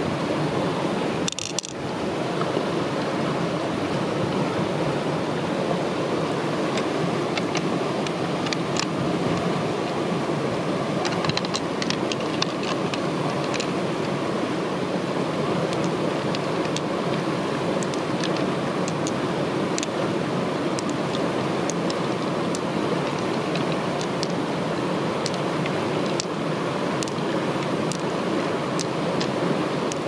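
Steady rush of fast-flowing stream water, with a brief scrape about a second and a half in and scattered light clicks of pearls knocking together and against the mussel shell.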